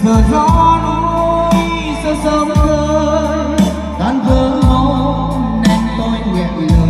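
Live-band style music played loud through a stage line-array PA system: a steady beat of drum hits over deep held bass notes, with a wavering sung or keyboard melody on top.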